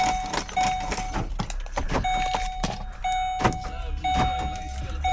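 A Ford Explorer's warning chime beeping, a steady mid-pitched tone repeating about once a second, with scattered clicks of handling in between.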